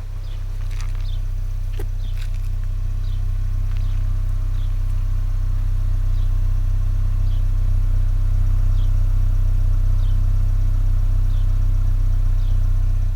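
Exhaust of a 2024 Ford Maverick's 2.0L turbocharged EcoBoost four-cylinder at idle, heard close to the tailpipe: a steady low hum, the truck's normal idle exhaust sound. It grows louder in the first second or so and falls away right at the end.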